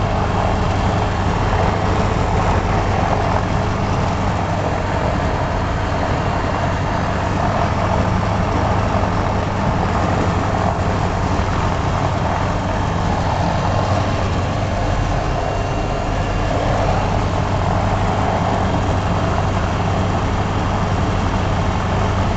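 The Diamond Katana DV20's four-cylinder Rotax 912 engine and propeller running steadily at low power while taxiing, heard from inside the cockpit.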